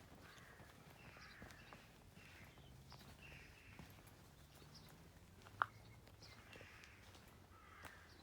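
Faint footsteps rustling over the ground at a walking pace, with one sharp click about five and a half seconds in.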